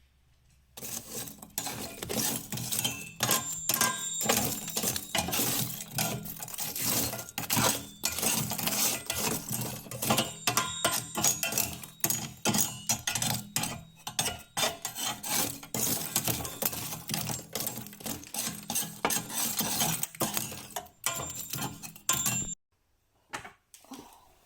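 Dishes and cutlery clinking and clattering rapidly and unevenly, with short ringing tones and a steady low hum underneath. It all stops suddenly near the end.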